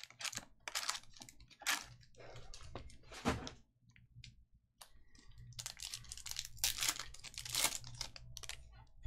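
Foil wrappers of Panini Hoops Premium Stock basketball card packs crinkling and tearing as the packs are ripped open and the cards slid out. The sound comes in irregular bursts, with a brief lull about four seconds in.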